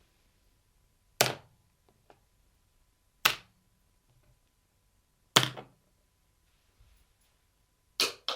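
Small objects dropped one at a time, each landing with a sharp knock and a brief rattle: four drops about two seconds apart, the last one near the end.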